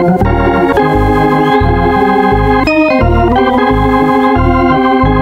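Organ music: sustained chords over a bass line that steps to a new note about twice a second.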